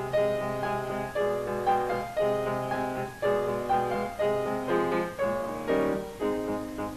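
Piano playing a slow classical-style melody over chords, with a new chord struck and fading about every half second.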